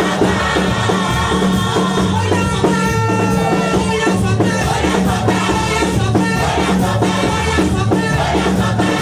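Choir singing a gospel song to band accompaniment, with a bass line and shaker-like percussion keeping a steady beat.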